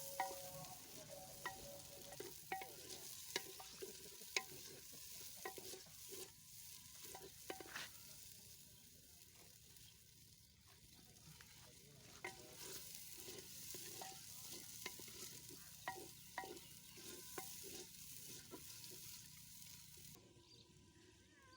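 Tomatoes and spice masala frying and sizzling in a cooking pot while being stirred, with frequent clicks and scrapes of the spoon against the pot. The sizzling drops away near the end.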